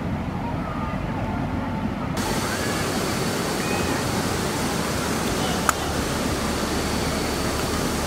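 Waterfall rushing: a steady, even roar of falling water that fills out sharply in the higher pitches about two seconds in. A single sharp click a little past halfway.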